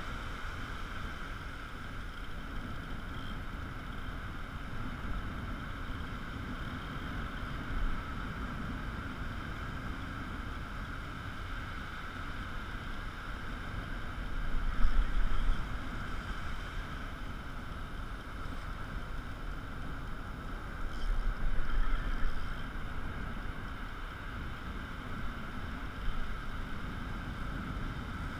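Wind buffeting the microphone over a steady background rush, with two stronger gusts, one about halfway through and another a few seconds later.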